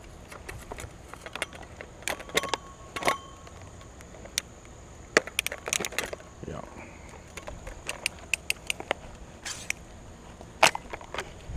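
Plastic and wire-grill parts of a broken pedestal fan clicking and rattling as they are handled, a string of sharp knocks with a short ring about two to three seconds in.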